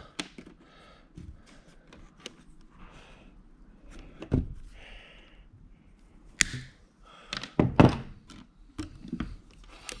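Hand-work on electrical wiring: scattered sharp clicks and knocks as cables are handled and pushed into a junction box and cutting pliers and wire strippers are worked and set down. The heaviest knocks come about eight seconds in.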